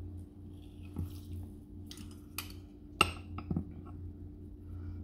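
Metal hand-held lime squeezer clicking and clinking against a small ceramic bowl as lime halves are pressed, a handful of sharp taps with the loudest about three seconds in.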